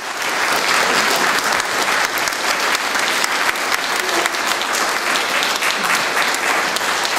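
A seated audience applauding steadily, many hands clapping at once, welcoming a speaker to the platform.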